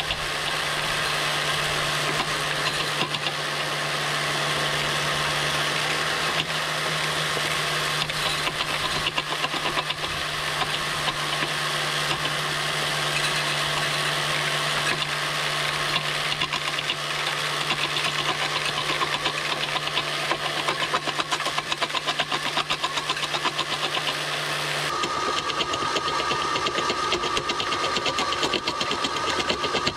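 Scale-model stone crusher and conveyor belt running, their motors humming under a dense, fast rattle and crunching of small stones being carried and crushed. About 25 seconds in the sound changes suddenly: the low hum gives way to a higher steady whine.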